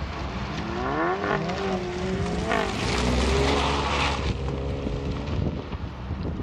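A sports coupe's engine revving hard on an autocross run, its pitch climbing, then breaking off sharply about two and a half seconds in before running steady. It is loudest as the car passes close by about three to four seconds in, then fades as it pulls away, over a low rumble of wind on the microphone.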